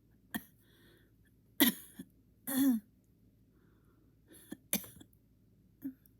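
A person's short coughs and throat-clearing sounds while trying to bring on a sneeze. There are about six sudden bursts, the loudest about a second and a half in, and one longer voiced sound that falls in pitch just after it.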